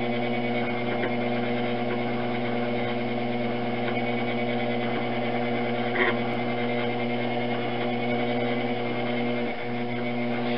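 Electric potter's wheel running at a steady speed, giving an even low electrical hum with a faint click or two as clay is thrown and collared in.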